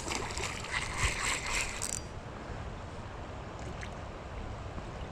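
Creek water running steadily, with a burst of short splashes in the first two seconds.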